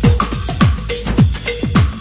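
Electronic dance music with a steady beat of deep kick drums and a short synth note repeating between them.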